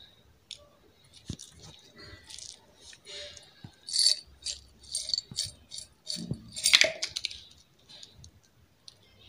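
Whole garam masala spices rattling and clicking against each other and a hard container as they are handled, in a string of irregular clicks and rattles, loudest about seven seconds in.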